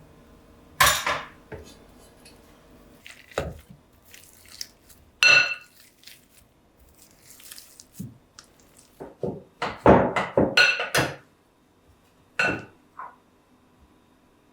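Dishes and glassware being handled: a series of knocks and clinks, several with a short ringing tone, bunching into a quick flurry about two-thirds of the way through.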